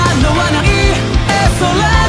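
An anime theme song: a singer over a band, with a drum beat and a sustained bass line.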